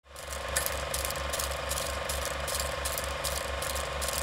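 Film projector running: a steady mechanical clatter over a constant hum, pulsing about four times a second, fading in at the start.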